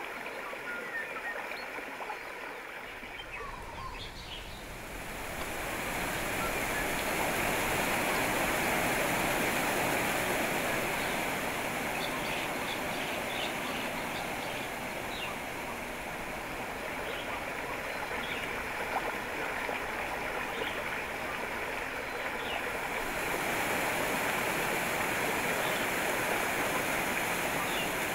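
Running water, a steady rushing that grows louder about five seconds in.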